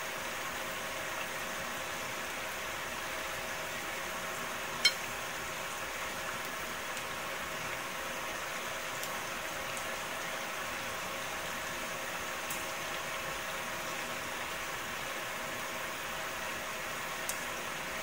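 Onion-and-carrot tempura fritters shallow-frying in oil in a frying pan: a steady sizzling hiss, with one sharp pop about five seconds in and a smaller click near the end.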